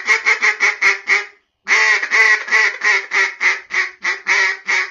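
Duck quacking in rapid runs of short quacks, about five a second, with a brief pause about a second and a half in.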